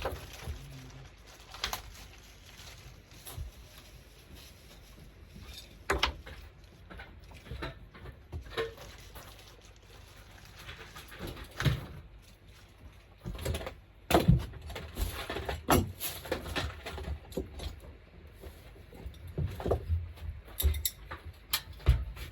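Irregular knocks, clicks and light rattles of hands working with tools and parts, with quiet stretches between them.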